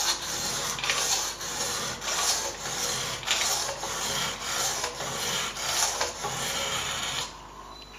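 A wetted 320-grit sharpening stone on a Ruixin Pro II guided sharpener, stroked back and forth along a knife edge, making a gritty scraping in repeated strokes. It stops about seven seconds in.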